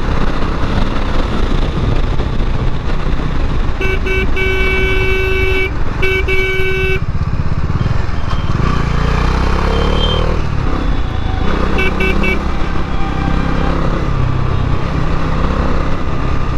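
Bajaj Dominar 400 single-cylinder motorcycle riding in traffic, its engine running steadily under rushing wind. A vehicle horn honks in two long blasts about four seconds in, then beeps three times quickly around twelve seconds in.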